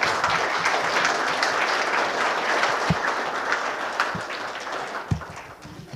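A gathered audience applauding, a dense patter of many hands clapping that tapers off over the last two seconds.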